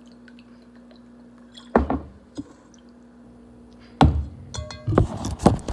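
A single thunk about two seconds in, then from about four seconds a quick run of clicks and clatters as a ring of plastic measuring spoons knocks against a stainless steel mixing bowl, over a faint steady hum.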